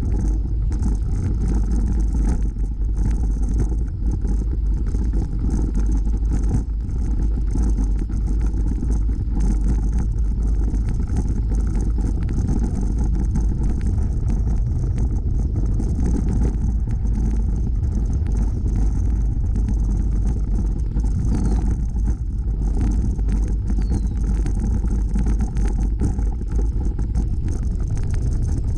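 Steady low wind rumble on the microphone of a bicycle-mounted camera while riding, mixed with tyre noise rolling over a gravel trail.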